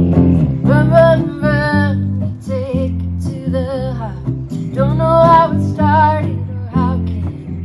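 Live acoustic folk music. A woman sings over acoustic guitar with a low bass line underneath. Her voice comes in under a second in and runs in phrases, with wavering vibrato on the held notes.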